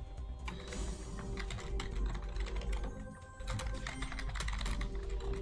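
Quick, irregular clicking of computer keyboard keys over the slot game's music.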